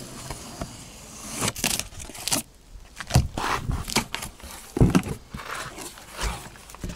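Cardboard packing box being slit open along its tape and its flaps pulled back and handled: a run of irregular scrapes, rustles and knocks.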